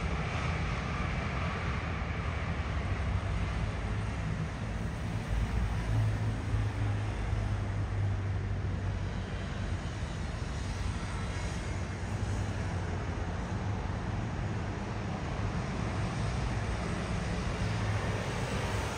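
Steady low engine drone over a haze of outdoor background noise, swelling slightly a few seconds in.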